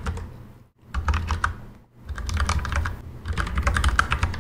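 Computer keyboard typing in quick bursts of keystrokes, with a couple of short pauses between bursts.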